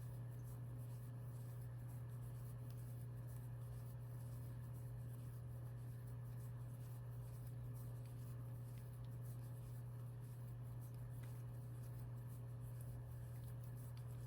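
Faint soft scratching and ticking of a crochet hook pulling yarn through stitches, over a steady low hum.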